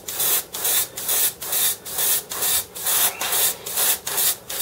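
Airbrush spraying paint in short repeated bursts of hiss, about two or three a second, as a spinnerbait head is given light passes of yellow.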